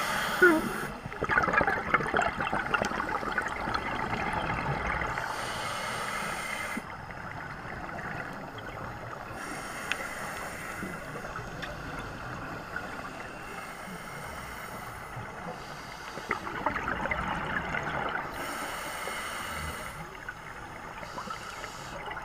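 Scuba diver breathing through a regulator underwater: regular breaths about every four to five seconds, with bursts of gurgling exhaust bubbles.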